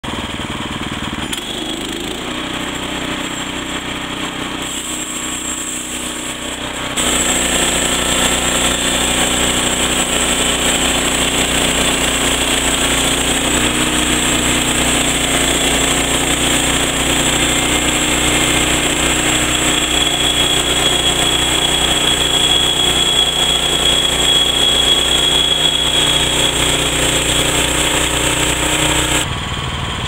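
Woodland Mills HM126 portable bandsaw sawmill: its engine runs steadily, then about a quarter of the way in the sound gets louder as the band blade cuts along a pine log. About a second before the end it drops back to the engine alone as the blade clears the log.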